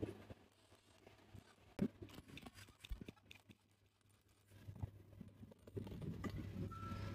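A few scattered light knocks and clicks over a faint steady low hum, the sharpest knock about two seconds in; a denser rumbling clatter builds near the end.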